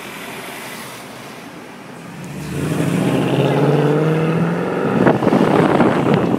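Mercedes-AMG C63 Coupé's 6.2-litre V8 pulling away hard under acceleration, its exhaust note climbing steadily in pitch. For the last second or so it turns louder and rougher, then cuts off suddenly.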